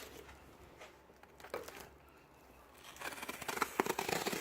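Packaging being torn open and crinkled. A few light rustles and clicks come first, then dense tearing and crinkling from about three seconds in.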